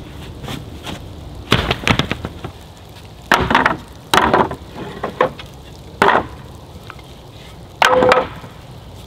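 Loose wooden pallet boards dropped one at a time onto a pile on a pallet, each landing with a short wooden clatter, about five times, a second or two apart.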